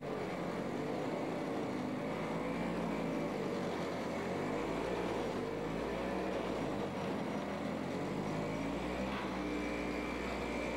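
Snow blower engine running steadily under load, its pitch wavering slightly.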